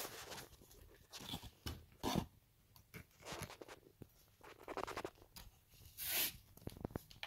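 Cardboard and plastic packaging being handled, with irregular rustling, scraping and small knocks, and a louder rustle about six seconds in.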